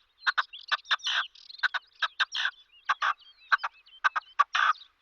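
Male red-legged partridge singing: repeated harsh chuk-chuk-chukar phrases, two or three sharp clipped notes followed by a longer rasping note, about one phrase a second. It is the territorial song of an already paired male, announcing himself and warning off rivals.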